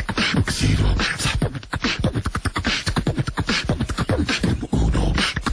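A voice making a rapid, unbroken run of short percussive mouth sounds, about eight to ten a second, like beatboxing, with no words.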